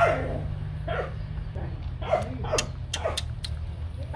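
Hmong bobtail dogs at play, giving short yips and play barks that fall in pitch, the loudest right at the start and a few more through the middle. A few sharp clicks come in the second half, over a steady low hum.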